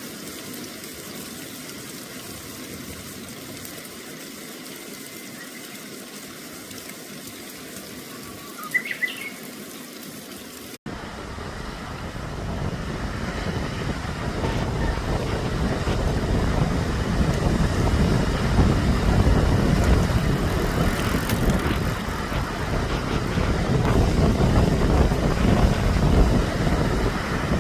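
A steady quiet outdoor hiss with a brief high chirp about nine seconds in. After a sudden cut comes a louder rushing noise that builds and swells unevenly, the sound of sea waves.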